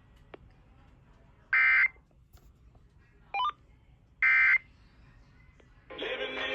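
Emergency Alert System (SAME) end-of-message data bursts from a weather radio broadcast. Two loud, short, buzzy digital bursts about three seconds apart, with a fainter short chirp between them, over faint hiss.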